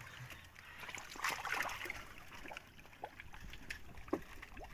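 Water splashing and trickling in a fish trap's net pen, with one louder splash a little over a second in and a few small drips and knocks after it.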